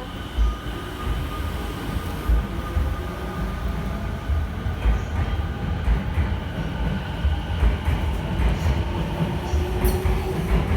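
Electric commuter train pulling in alongside the platform, its wheels knocking over rail joints over a steady hum and whine.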